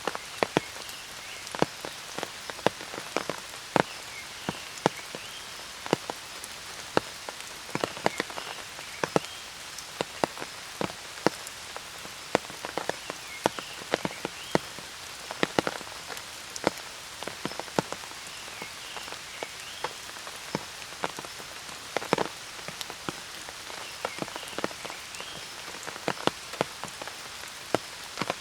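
Steady rain, with many large drops tapping sharply close by at irregular intervals. Short calls sound every few seconds over the rain.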